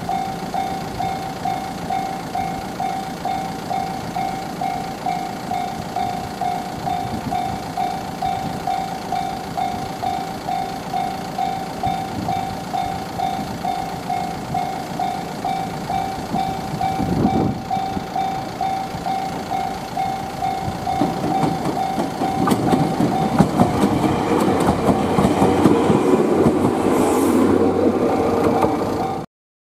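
Level-crossing warning bell ringing with a rapid, regular ding, about two to three strokes a second, while an electric train runs in over the station's points. The wheel clatter grows louder through the second half as the bell stops about 23 seconds in.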